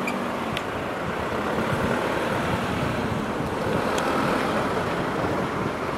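Steady rumbling vehicle noise at a railway level crossing, with a couple of faint clicks.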